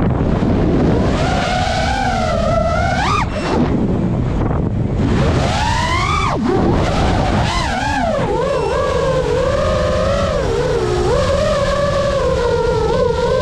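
FPV drone's motors whining, the pitch sweeping up and down with the throttle over a rush of wind noise. The whine dives sharply about three seconds in and again about six seconds in, then climbs back and wavers more steadily through the second half.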